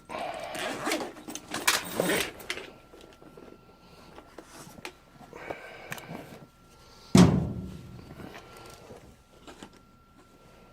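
Handling noise of tools being taken out of a case: rustling and clatter in the first few seconds, then one sharp, loud thunk about seven seconds in. A faint steady high whine runs underneath.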